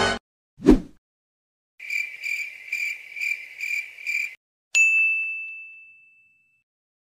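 A short low thump, then a high ringing tone pulsing about six times over two and a half seconds, then a single bell-like ding that rings on and fades away.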